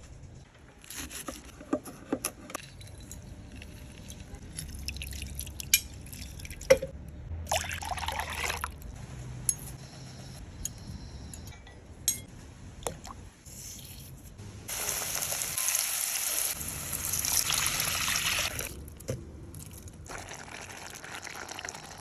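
Kitchen preparation sounds: scattered clicks and knocks of utensils and containers, with stretches of liquid pouring or splashing, the longest and loudest from about 15 to 19 seconds in.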